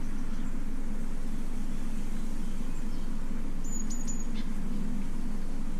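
A steady low hum, with three short high chirps about four seconds in.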